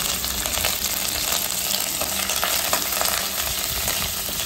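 Curry leaves, dals and cashews sizzling in hot oil in a stainless steel kadai, spitting with many small pops, while a metal ladle stirs and scrapes the pan.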